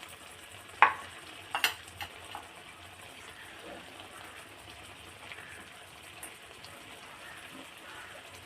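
Chicken pieces dry-frying in a pan with masala, a low steady sizzle now that the cooking water has boiled off. A few sharp clinks of the stirring spoon against the pan come in the first couple of seconds.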